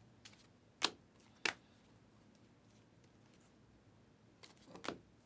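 Panini Prizm basketball trading cards being handled and flicked through, making two sharp snaps about a second in, half a second apart, then a quick run of smaller flicks near the end.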